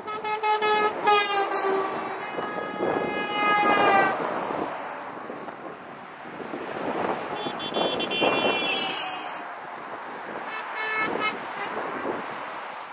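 Lorries and a fire engine drive past, sounding their horns over the engine and tyre noise. There are quick repeated toots near the start and again near the end, and long horn blasts in between whose pitch falls as each vehicle goes by.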